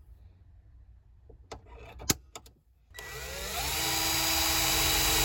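A few light clicks, then about three seconds in a Milwaukee cordless drill starts up. Its pitch rises quickly before it runs steady, drilling into the truck's dash panel.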